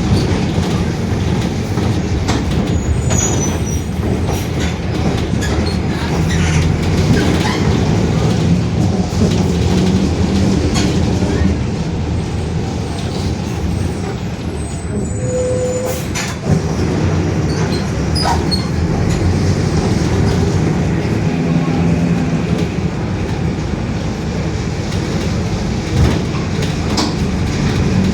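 Mercedes-Benz OF-1721 BlueTec 5 city bus heard from inside while under way: the diesel engine runs steadily with the differential growling. The body rattles and clicks now and then.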